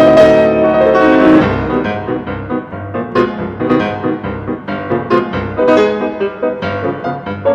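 Piano music: a held chord fades away, then a run of quick, short notes follows.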